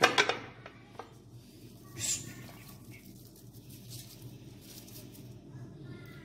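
Crushed red chilli flakes sprinkled by hand onto chopped tomatoes and onions in an aluminium pressure cooker: a few sharp clicks at the start, then faint light pattering over a low steady hum.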